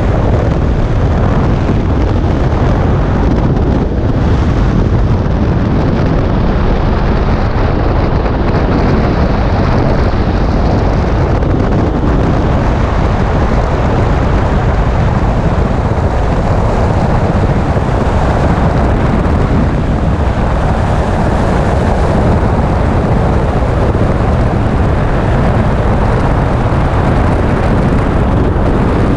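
Loud, steady wind rush blasting across the camera microphone in skydiving freefall, the airflow of a body falling at high speed.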